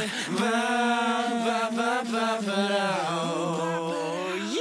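Music with a singing voice holding long notes and gliding between them, chant-like, with no spoken words.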